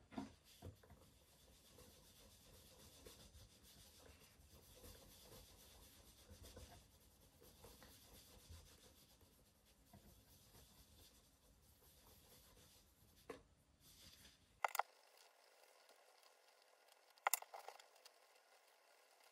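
Faint, steady scratchy rubbing of a wax-laden cloth on the polished leather toe of a shoe, as the shine is buffed up. Three sharp clicks stand out in the second half.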